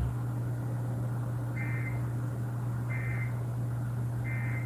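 Emergency Alert System end-of-message data burst: three short, identical warbling digital tone bursts about a second apart, over a steady low radio hum. They signal the end of the alert broadcast.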